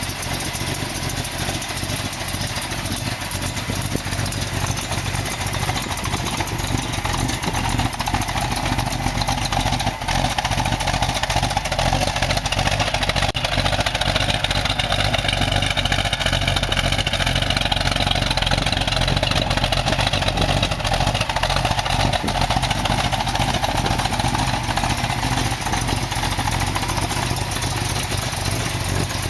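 1972 Dodge Challenger's 340 V8 idling steadily through its dual exhaust. The exhaust note grows louder and brighter for several seconds in the middle, heard close to the tailpipes.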